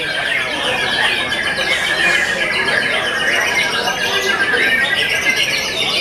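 Many caged white-rumped shamas (murai batu) singing at once in a contest hall: a loud, dense chorus of overlapping quick whistled phrases and chirps that never lets up.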